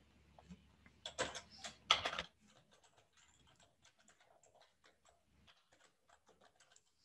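Computer keyboard being typed on: a few louder clicks between one and two seconds in, then a long run of light, quick keystrokes as a file name is typed.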